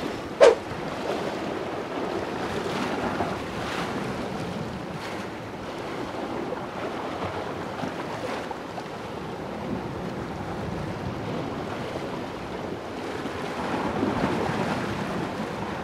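Sea waves washing against the rocks at the foot of a cliff, mixed with wind on the microphone, as a steady wash that swells a little near the end; a brief sharp sound about half a second in.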